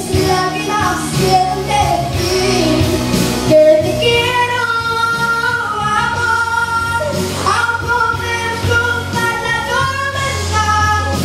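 Music: a live pop song with piano accompaniment, carrying a melody in long, wavering held notes.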